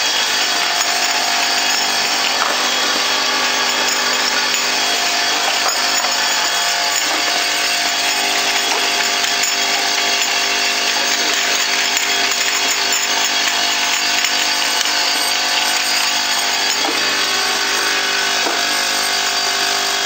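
Automatic bottle filling, capping and labeling line running: a steady mechanical whine and hum of motors and conveyors, with a few faint clicks near the end.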